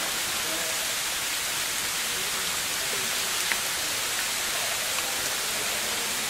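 Steady hiss, strongest in the high range, with a faint click about three and a half seconds in.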